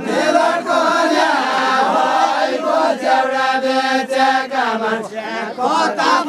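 A group of men singing a deuda folk song together in unison, with long drawn-out notes.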